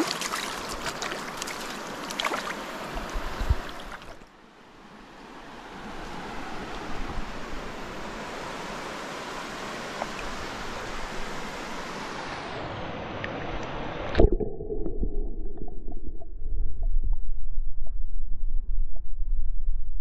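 River water splashing with sharp clicks and splashes as a trout is handled in a landing net in the shallows, then steady water noise. About 14 seconds in the camera goes under with a splash, and the sound turns muffled: a low underwater rumble of flowing river.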